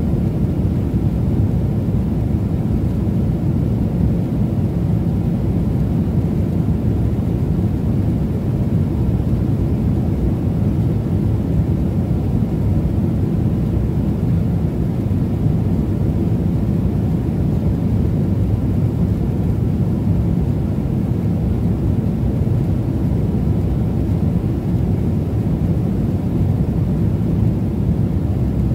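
Steady low roar of a jet airliner cabin in cruise flight: engine and airflow noise, even throughout with no change.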